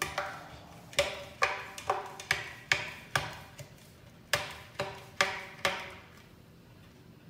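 About a dozen sharp knocks, roughly two a second, each with a short metallic ring. They come as hands press the rubber strip into the slot of a Thule WingBar Edge Evo aluminium roof bar, working along its length, and they stop about six seconds in.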